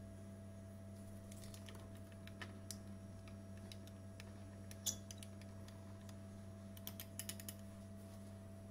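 Metal spoon stirring instant yeast into milk in a ceramic mug: light, scattered clinks and taps of the spoon on the cup, with a sharper tap about five seconds in and a quick run of taps about seven seconds in. A steady low hum runs underneath.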